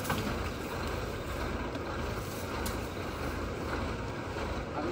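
Large goods lorry's engine idling steadily, a continuous low rumble.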